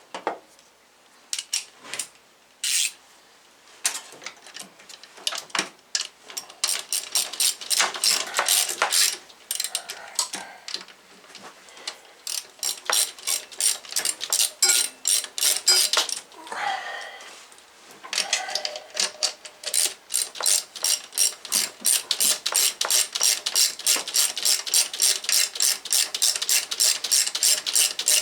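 Hand ratchet wrench clicking as a bolt is run in: a few scattered clicks at first, then long fast runs of about four clicks a second, broken once by a short scrape.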